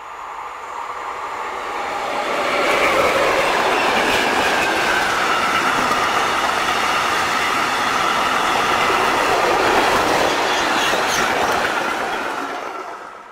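Freight train hauled by a class 181 electric locomotive passing close by, with a long string of open wagons. Wheel and rail noise with clicking over the rail joints builds over the first few seconds, holds steady as the wagons run past, and drops away near the end.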